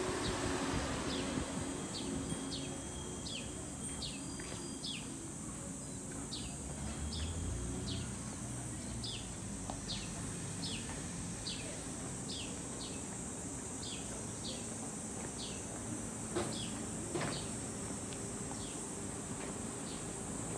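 Cicadas buzzing in a steady high drone, with a bird giving short downward chirps about once or twice a second. Two light knocks sound near the end.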